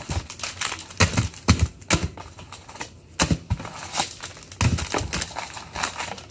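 Wrapped trading-card packs being pulled from a cardboard box and dealt onto a countertop: irregular taps, clicks and soft thuds, with wrapper crinkle.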